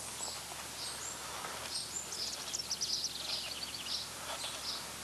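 Wren singing: scattered high chirps and, about two seconds in, a rapid trill of notes falling in pitch, over a steady outdoor background noise.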